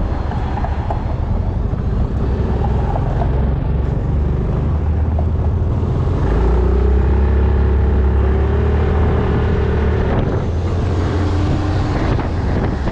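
Yamaha Majesty 400 single-cylinder scooter running under way, with heavy wind rumble on the microphone. A steady whine comes in partway through and fades out after about ten seconds.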